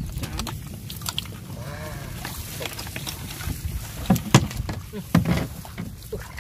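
Knocks and bumps against a small paddle boat as a paddle is handled and a person shifts about and grips the gunwale, over a steady low wind rumble on the microphone. The loudest knocks come in a cluster about four seconds in and again about a second later.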